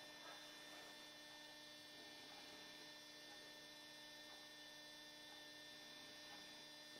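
Near silence with a steady electrical hum and faint high whine.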